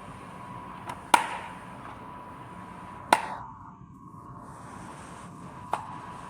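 Sharp clicks of wire connectors being pushed onto terminals: two loud clicks about two seconds apart, with a couple of fainter ones around them, over a faint steady tone.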